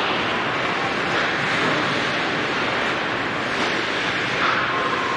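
Ice hockey rink game sound: a steady noisy hiss of skates on the ice and reverberant arena hubbub, with a few brief skate scrapes standing out.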